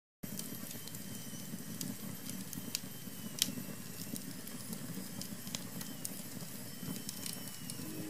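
Firewood burning in an open fireplace, crackling with scattered sharp pops and snaps over the low, steady rush of the flames. The loudest pop comes about three and a half seconds in.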